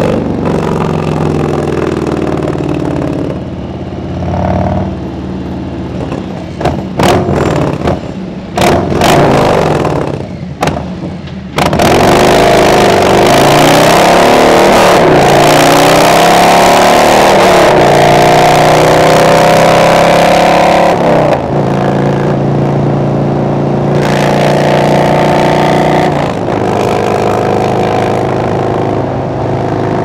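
Harley-Davidson Road Glide Special's Milwaukee-Eight V-twin running on the road. A string of sharp clicks and dips comes in the first half. Then the engine is loud under hard acceleration, its pitch sweeping up and down, before it settles to a steadier note for the last third.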